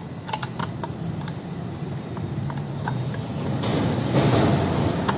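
Light metallic clicks and taps of gearbox gears and parts being handled while a reverse gear is fitted onto the shafts of a manual transaxle. About three and a half seconds in, a louder rumbling noise builds up and covers them.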